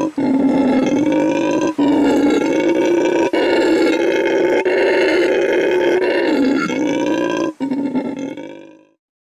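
Howler monkey howling: a long, loud, deep roar broken by brief gaps every second or two, fading out near the end.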